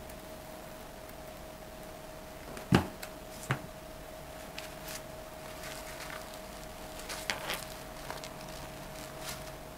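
A hot glue gun set down on a wooden table with one sharp knock, a smaller knock just after, then soft rustles and light taps as artificial flowers and leaves are pressed and arranged on a straw hat brim, over a faint steady hum.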